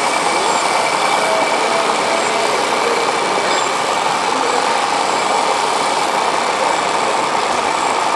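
Steady idling-truck engine sound from radio-controlled model trucks' sound modules, over a constant hall background, with a thin steady high tone running through it.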